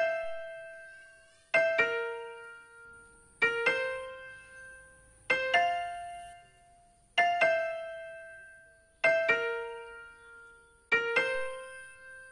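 Slow background music: a keyboard chord struck about every two seconds, each ringing out and fading away before the next.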